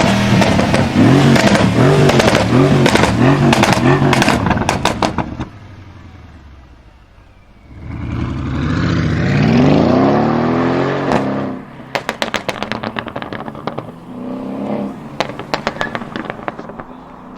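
Tuned twin-turbo V8 of a Mercedes CLS63 AMG revved hard in blips about once a second, with exhaust crackles and pops between them. It drops away, then pulls off with a rising engine note for a few seconds. Another long string of pops and crackles follows as it comes off the throttle, with one short rev near the end.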